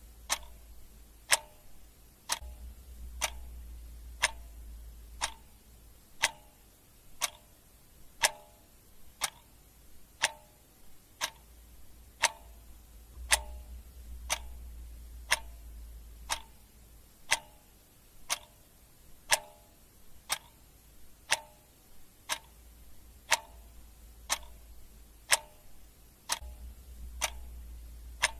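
Clock ticking steadily in an even tick-tock, with louder and softer ticks alternating, over a faint low hum that swells and fades.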